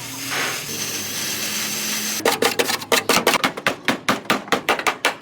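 Hammer striking car body sheet metal in quick, even blows, about five a second, starting about two seconds in. Before that there is a steady hiss with a faint low hum.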